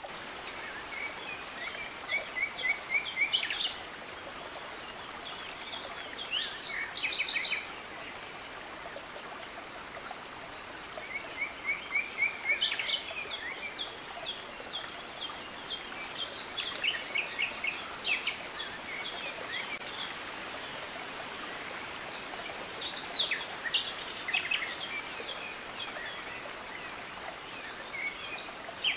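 Steady rush of a small waterfall pouring into a rock pool, with birds calling in bursts of quick repeated high notes and trills about every ten seconds.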